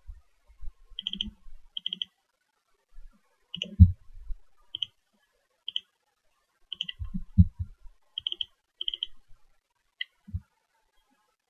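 Computer mouse clicking: about a dozen short, sharp clicks, several in quick pairs like double-clicks, as menus and folders are opened. A few low thumps come with them, the loudest about four seconds in and another about seven and a half seconds in.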